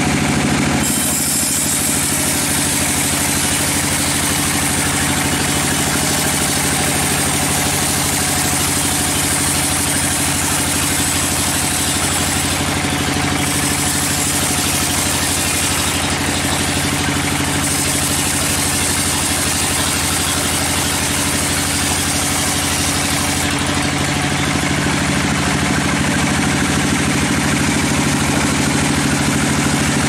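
Sawmill band saw running with a steady low hum from its drive, its blade sawing lengthwise through a teak log with a high hiss. The high hiss of the cut dips twice and fades about three-quarters of the way through, leaving the machine running.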